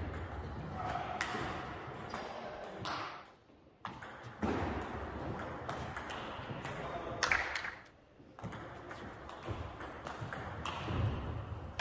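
Table tennis ball clicking off the rackets and the table in a rally of quick, repeated hits, with more ball clicks from a neighbouring table.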